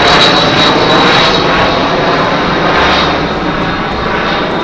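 Loud, steady rushing engine-like drone with a thin high whine, slowly fading, like an aircraft passing overhead.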